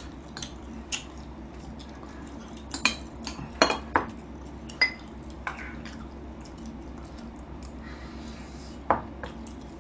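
A fork clinking and scraping against bowls while eating: short, scattered clinks, several close together about three to four seconds in.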